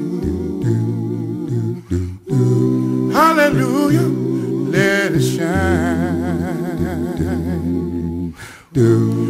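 Music from an inspirational gospel-style song: a wordless, hummed or vocalised melody wavering with heavy vibrato over held chords, with two short breaks.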